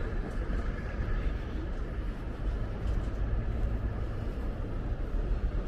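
Steady low rumble of city traffic, with wind buffeting the microphone.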